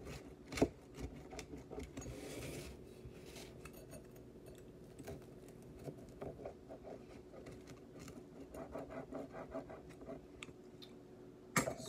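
Pizza cutter wheel rolling through a stuffed crust pizza and scraping on the pizza pan: irregular scratching, rubbing and small clicks, with a sharper knock about half a second in, over a faint steady hum.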